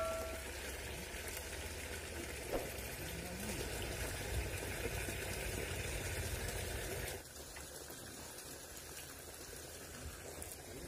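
A steady hiss of flowing river water over a low rumble. It drops abruptly to a quieter background about seven seconds in.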